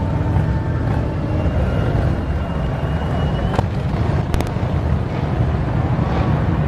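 A dense stream of motorcycles riding past, their engines making a steady, loud low rumble. A few sharp clicks come through in the middle.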